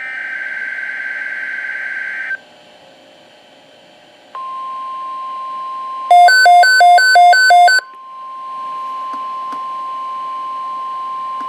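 NOAA Weather Radio Emergency Alert System tones: a buzzy digital SAME header burst about two seconds long, then after a short gap the steady 1050 Hz warning alarm tone. A Midland WR120B weather radio sounds its own loud alternating two-pitch alert beeps over that tone for about two seconds.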